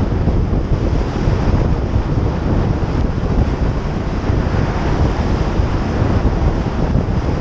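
Loud, steady rush of wind buffeting the microphone of a camera on a motorcycle riding at road speed.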